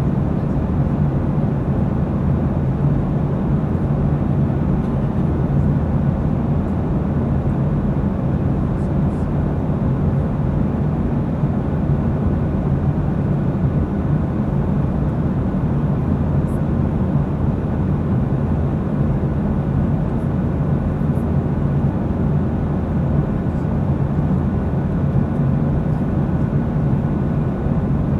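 Steady low drone of an airliner's passenger cabin in flight: engine and airflow noise, even throughout, with a few faint clicks.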